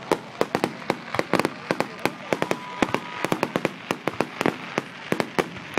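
Aerial fireworks display: a rapid, irregular barrage of shell bursts and cracks, several bangs a second.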